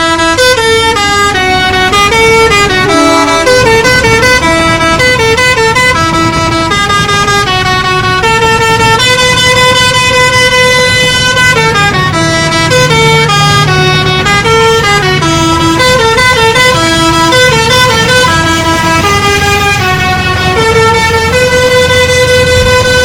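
Telolet multi-tone musical horn playing a tune, its notes stepping up and down without a break, over a low rumble.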